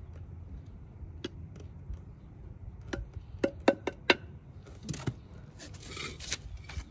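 Small metal garden trowel working potting soil in a glazed ceramic pot: a few sharp taps against the pot and soil, a quick run of them around three to four seconds in, then a rustling scrape of soil near the end.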